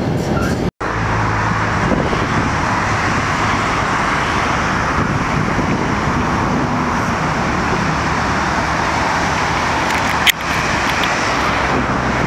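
Steady road traffic noise from passing cars beside a tram line. The sound drops out completely for a moment just under a second in, and there is a single sharp click about ten seconds in.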